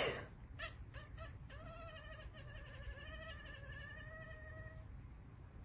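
Domestic cat calling in response to a person's sneeze: three short meows, then one long wavering meow lasting about three seconds. The tail of the sneeze fades out at the very start.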